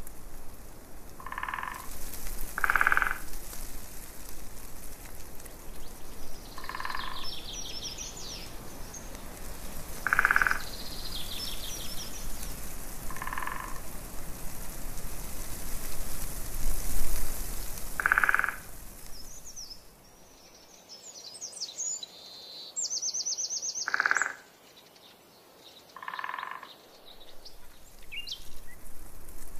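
Frogs croaking in short calls every few seconds, with faster high chirping trills between them over a steady wash of background noise.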